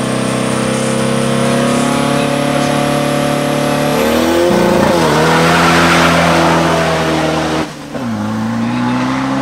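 Diesel pro street 4x4 drag truck's engine running at high revs, its pitch climbing slowly. A rushing noise swells over it in the middle. Near the end the sound drops sharply for a moment, then the revs climb again.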